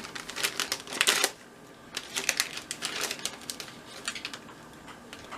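Plastic toy packaging crinkling and crackling as it is handled and torn open, in several spells of quick crackles.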